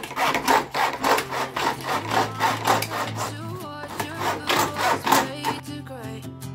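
Saw strokes cutting through a PVC panel, about three strokes a second, growing fainter toward the end. Background music with a low held note and a melody comes in about two seconds in.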